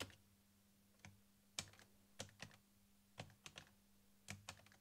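Keys being pressed one at a time on an Amstrad NC100 notepad computer's keyboard: about ten separate clicks at an uneven pace, with a faint steady hum underneath.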